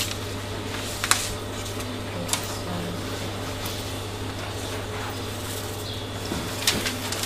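Paper pattern and fabric pieces being handled and shifted on a sewing table: a few short rustles and taps over a steady low hum.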